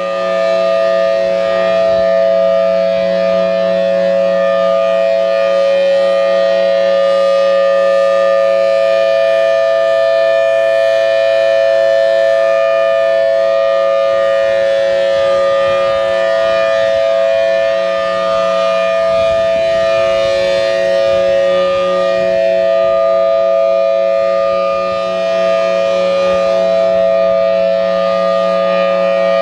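Federal Signal Thunderbolt 1003 siren, driven by its 4M blower, sounding a steady full-alert tone: a two-note chord from its 5/6 port ratio. The level swells and dips slightly as the rotating horn sweeps around.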